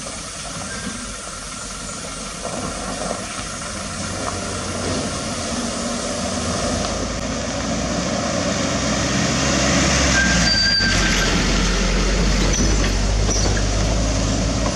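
Toyota Dyna 130HT dump truck's diesel engine running as the truck drives up close and passes, the rumble growing steadily louder, with a brief high squeal about ten seconds in.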